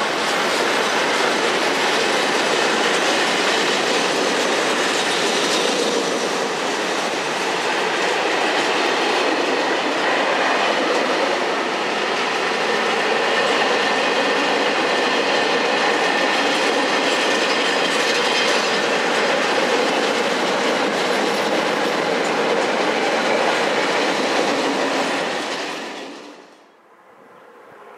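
Container freight wagons rolling past on the rails, a steady sound of wheels running on track, fading out quickly near the end.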